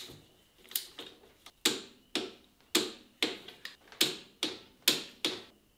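A hand socket ratchet clicking as it is swung back and forth on the cylinder head nuts, about two sharp clicks a second.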